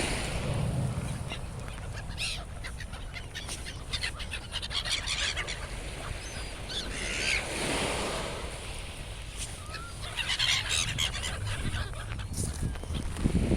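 Gulls calling in several harsh bursts of cries over a steady low rumble of wind and sea.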